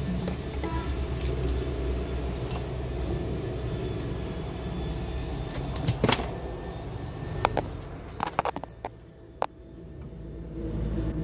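Car engine running with a steady low rumble, with sharp metallic clinks about six seconds in and several more shortly after; the rumble drops away for a moment, then swells again near the end.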